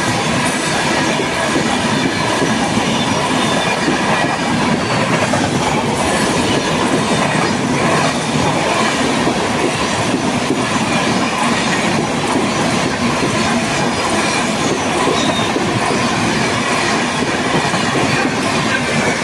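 Passenger express train rushing past at speed, its wheels clattering steadily over the rail joints in a continuous loud rush of noise.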